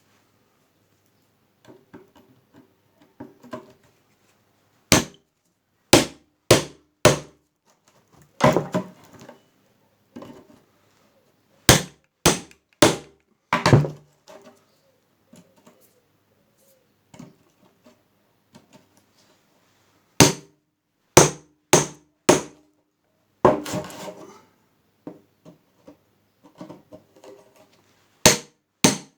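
Hammer blows on a Lister D engine radiator core as its leaking centre section is knocked out, in clusters of three or four sharp strikes with pauses between. Quieter taps and clinks fill the gaps.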